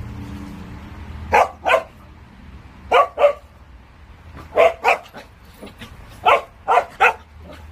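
Black-and-tan Jindo dogs barking while play-wrestling: four quick volleys of sharp barks, three pairs and then a triple, about every second and a half.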